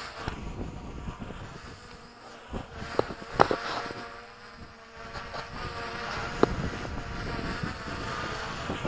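DJI Mavic Pro quadcopter's propellers buzzing steadily at a distance, mixed with wind noise on the microphone. A few sharp clicks come about three seconds in, again half a second later, and once more near six and a half seconds.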